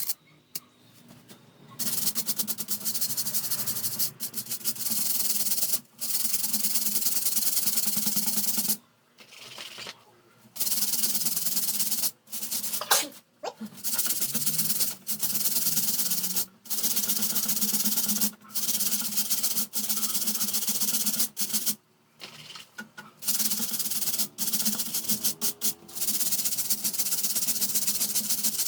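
Scrubbing and rubbing on a fan's parts during cleaning: a coarse, hissy scraping in runs of a few seconds, broken by short pauses.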